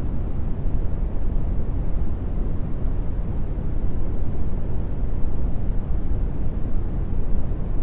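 Brown noise: a steady, deep rumbling hiss, strongest in the bass and fading toward the treble, without change.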